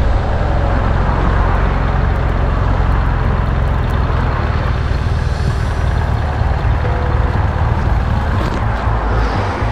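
Steady wind and road noise from a motorcycle riding at highway speed, heard through the rider's camera microphone, with heavy low rumble from wind buffeting.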